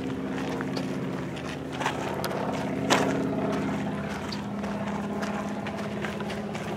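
A steady, low engine drone from a distant motor. A couple of sharp knocks stand out, the loudest about three seconds in.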